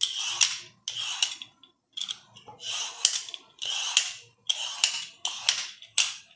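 Red plastic hand slicer scraping long strips of peel off a raw bottle gourd (lauki), about eight quick rasping strokes, one a little under every second.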